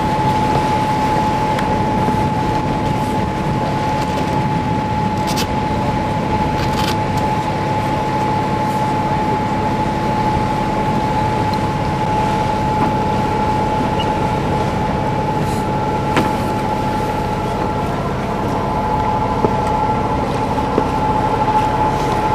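Boat engine running steadily, a constant drone with a high whine over it that stays unchanged throughout.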